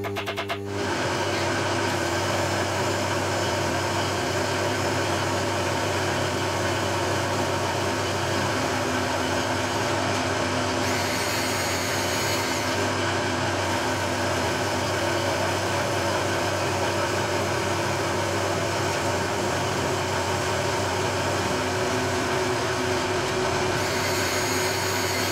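Milling machine's indexable-insert face mill taking a facing cut across a metal block: a steady cutting noise over the hum of the spindle motor, which thickens about a second in. A higher hiss comes in briefly midway and again near the end.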